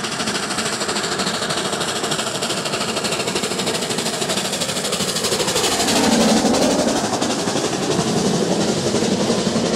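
Steam locomotive working hard, its exhaust coming in rapid, even beats over a steady hiss of steam.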